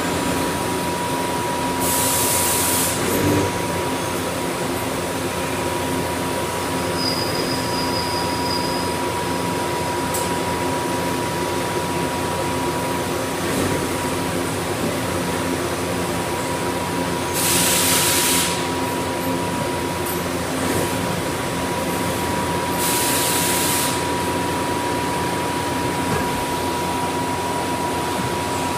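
Doosan Puma TT1800SY CNC lathe running a machining cycle, with coolant spraying inside the enclosure: a steady mechanical drone with a constant whine. Three brief hissing surges come through, about two, seventeen and twenty-three seconds in.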